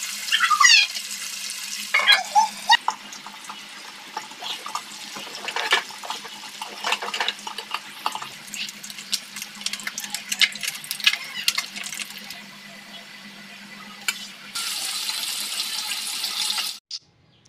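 Kitchen cooking sounds: food sizzling in hot oil, then a metal spatula scraping and clicking against a pan as a potato and green-bean stir-fry is stirred. Near the end, a pan with eggs in water hisses steadily.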